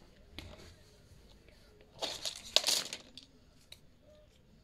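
A shirt and a plastic clothes hanger being handled: fabric rustling and light plastic clicks, with the loudest rustling about two and a half seconds in.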